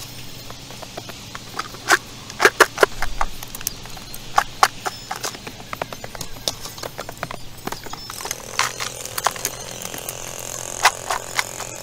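Irregular sharp knocks and clatter of boots and loose stones on rocky soil as a digger walks down into a stony pit, then short strikes of a hand digging tool into the stony ground near the end. A steady high whir comes in about two-thirds of the way through.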